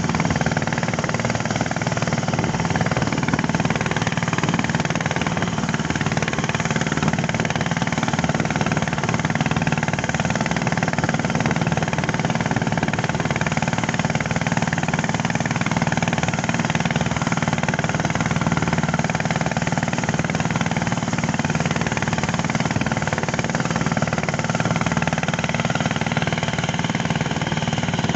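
Small wooden boat's engine running steadily while underway at cruising speed, over a constant rush of water and wind.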